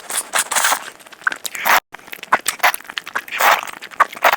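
Close-miked crunching and chewing of crisp food, a dense run of sharp crackles and bites, broken by a brief cut to silence a little under two seconds in.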